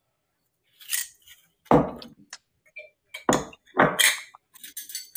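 Several sharp knocks and clinks of a metal measuring spoon against a stainless steel mixing bowl and a spice jar as cinnamon is measured into oats, with smaller clicks near the end.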